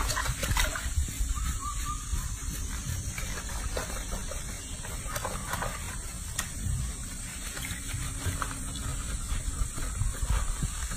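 Soapy water sloshing and lapping in a sink basin as hands wash a baby monkey, over a steady hiss.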